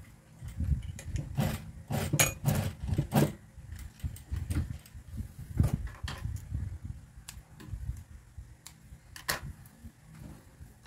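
Juki industrial sewing machine stitching in short, uneven bursts, with clicks and rattles of fabric and tools being handled. Near the end there is a sharp snip of scissors.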